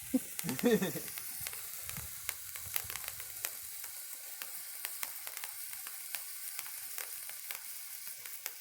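Firework sparkler sticks burning with a steady hiss of sparks, peppered with quick, sharp crackling ticks. A short voice sounds near the start.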